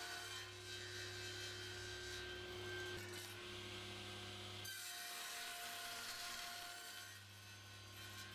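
Table saw running faintly while oak boards are crosscut to length on a crosscut sled, a steady motor whine and hum.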